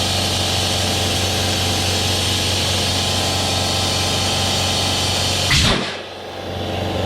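A bead blaster firing once about five and a half seconds in: a short, loud blast of compressed air into the gap between a tractor tire and its rim to seat the bead. A steady motor hum runs under it.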